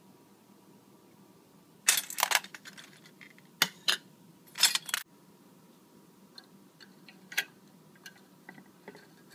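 Metal parts of a homemade nitinol heat engine clinking and clattering against stainless steel bowls. Several short bursts of clatter come in the first half, then lighter scattered clicks with one sharper clink.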